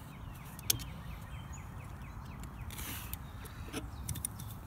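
Sharp clicks of small metal parts, with a short scrape about three seconds in, as the rotary seal and its retainer clips are worked off the bare motor shaft of a Flint & Walling CJ101 pump.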